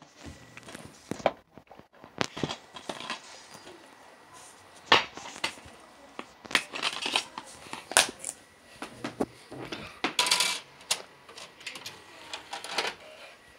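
Handling of a plastic DVD case and disc: a string of sharp plastic clicks and short rattles as the case is snapped open, the disc is pried off its hub and set on an Xbox 360's open disc tray. A faint steady high tone runs underneath.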